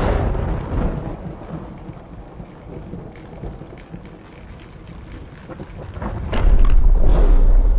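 Thunder rumbling over a steady rain-like hiss. A sudden loud crack opens it and fades out, and a heavy, deep rumble builds about six seconds in.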